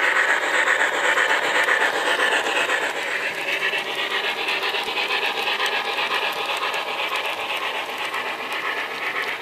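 HO scale model freight cars rolling past on the track: a steady rolling rattle of small metal wheels on rail, fading slightly toward the end.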